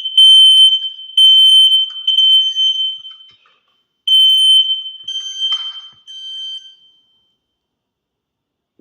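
Fire alarm sounding a loud, high-pitched electronic beep in long repeated pulses, falling silent about seven seconds in. It is a false alarm: there is no fire.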